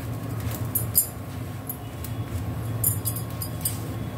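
Slices of white bread being laid and shifted on an oiled flat iron griddle, with a few light ticks and crackles over a steady low rumble.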